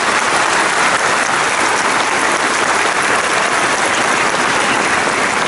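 Large audience applauding steadily, a dense and even clapping that holds at one level throughout.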